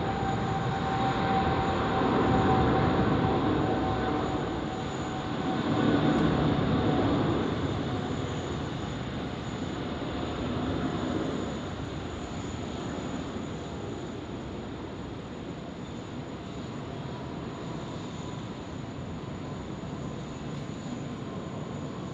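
Jet airliner engines running as the aircraft passes, a rumble with a faint whine that is loudest in the first few seconds and then slowly fades away.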